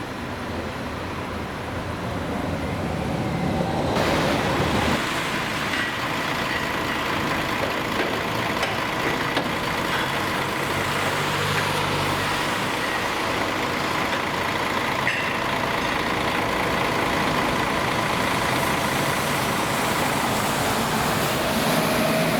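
Steady heavy-vehicle engine noise, growing louder about four seconds in and then holding steady.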